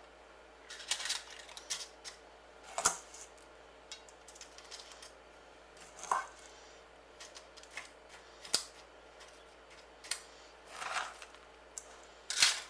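A spoon scraping and tapping against a bowl while sticky chocolate-coated Cocoa Pops crackle mixture is scooped into paper patty cases: scattered short scrapes and crunchy rustles, with a few sharp clicks, every second or two.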